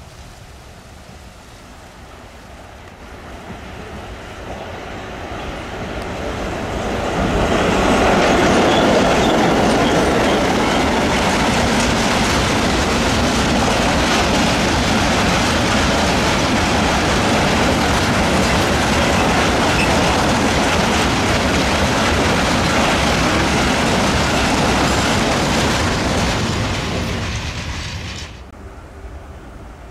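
A freight train hauled by a Czech laminate-bodied 'laminátka' electric locomotive approaching and passing close by. The rumble rises as it nears, then a long string of open freight wagons rolls past with steady wheel clatter on the rails. The sound stops suddenly near the end.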